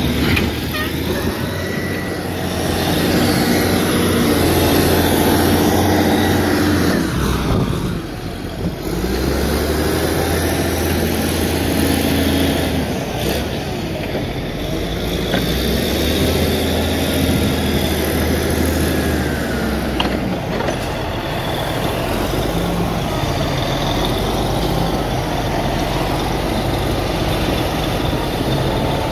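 Cat 980C wheel loader's diesel engine working under load, revving up and easing off in three long surges of several seconds each as it digs and lifts loads to fill a dump truck, then running steadier and lower, with a few sharp knocks.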